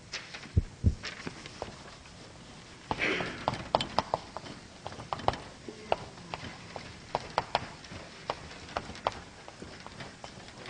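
Irregular sharp taps and clicks of writing on a board, a rapid uneven run starting about three seconds in. Two dull thumps come shortly before it.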